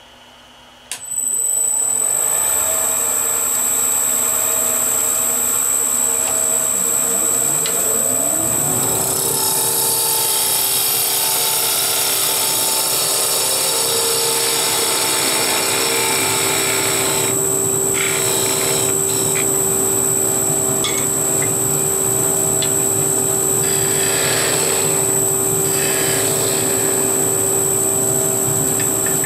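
Wood lathe switched on about a second in, its motor whining steadily and climbing in pitch over several seconds as it comes up to speed. A handheld turning tool then cuts into the spinning softwood blank, throwing off chips.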